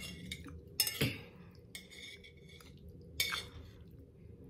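A spoon clinking and scraping against a dish while eating. There are a few short, ringing clinks, the sharpest about a second in and another about three seconds in.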